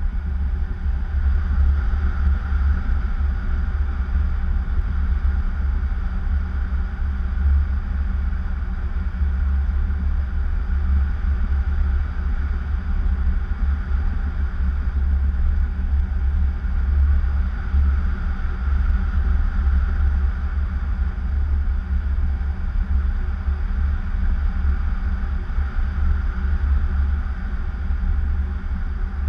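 Steady wind rumble from the airflow over an action camera's microphone in paraglider flight.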